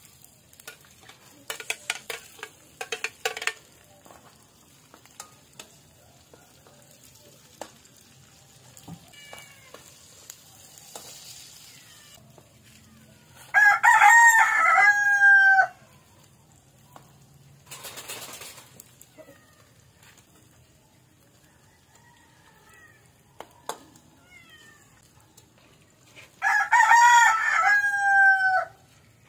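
A rooster crows twice, each crow about two seconds long with a falling tail, once about halfway through and again near the end; the crows are the loudest sounds. Between them come clinks and scrapes of a metal spatula in an aluminium pan near the start, and a short burst of sizzling.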